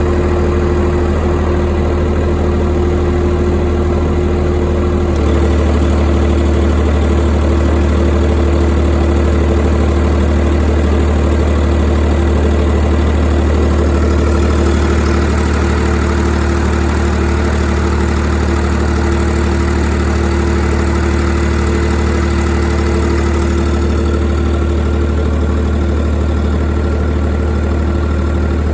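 YD385 diesel engine driving an 11 kW generator, running steadily. About five seconds in, its low note changes abruptly and gets a little louder, as the genset takes on a sudden load.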